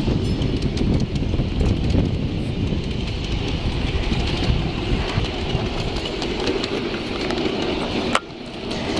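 Steel wheels of a ride-on miniature-railway car rumbling along the track, with light clicks from the rails, heard from aboard the moving train. The rumble drops away suddenly about eight seconds in.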